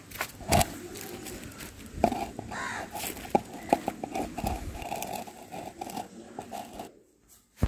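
Knocks and taps of a plastic bowl and glass being handled and set on a stone wall, with a hen clucking in the background.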